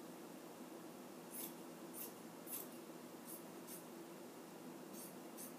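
Polar fleece being cut along a fold line: a series of faint, short swishing strokes through the fabric, about one every half second, over a faint steady hum.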